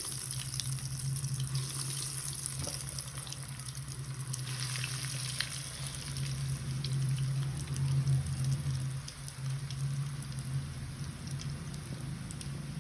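Breadcrumb-coated paneer and cheese nuggets sizzling as they fry in hot oil: a steady hiss with scattered crackles.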